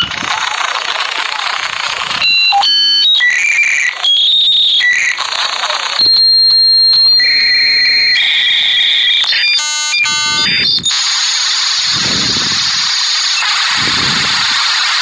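Dial-up modem handshake: a burst of hiss, then a series of high beeps and steady whistling tones, a rapid chirping warble about ten seconds in, and finally a steady loud hiss as the modems settle into the connection.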